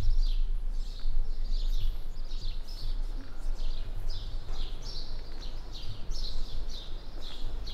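Footsteps on paving and stone steps, a steady walking pace of about two steps a second, over a low outdoor rumble.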